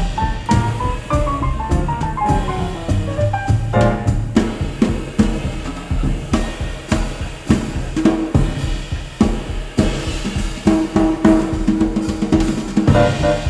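Music with a drum kit (snare and kick) playing a steady beat under a falling run of melodic notes, played back over Qualio IQ open-baffle loudspeakers.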